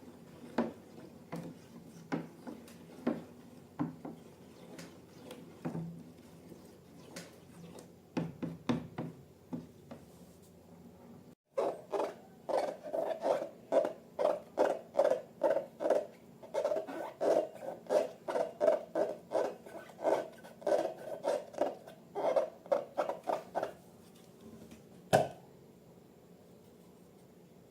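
Slime being handled: faint scattered clicks and taps at first, then after a sudden cut a steady run of rhythmic squishing strokes, two or three a second, followed by one sharp click.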